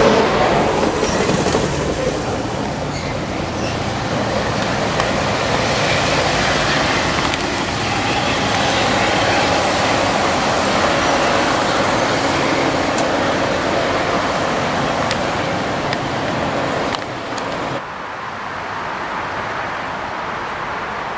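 Caltrain bilevel commuter train rolling past and away on the rails, a steady rush of wheel and rail noise that drops off sharply about three-quarters of the way through.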